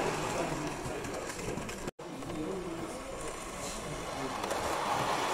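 Model steam locomotive running on a layout's track: the steady whirr and rumble of its small electric motor and wheels. There is a split-second dropout of all sound about two seconds in.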